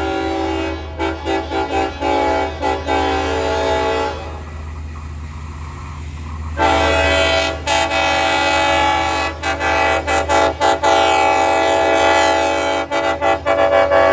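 Long Island Rail Road train horn sounding a loud multi-note chord in repeated blasts, broken by many short gaps. It eases off a few seconds in, then comes back louder. A steady low rumble from the train runs underneath.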